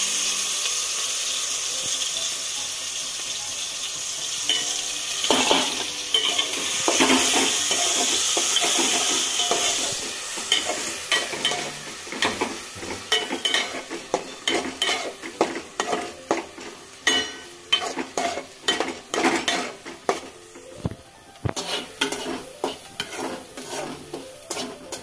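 Chopped onion, tomato and green chilli sizzling loudly as they hit hot mustard oil in an aluminium pot, the sizzle easing over about ten seconds. Then a metal ladle stirs and scrapes against the pot in quick strokes while the vegetables keep frying.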